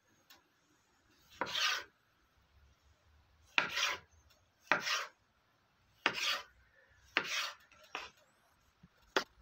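Kitchen knife cutting a yellow tomato on a wooden cutting board: about seven separate short strokes, roughly a second apart, each going through the tomato and ending on the board.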